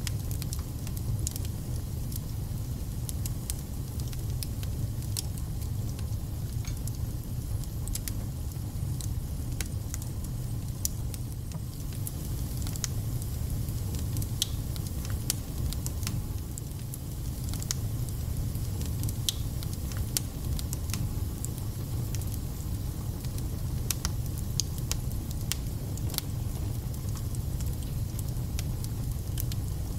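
Wood fire burning in a fireplace: a steady low rumble with many sharp crackles and pops spitting out at irregular moments.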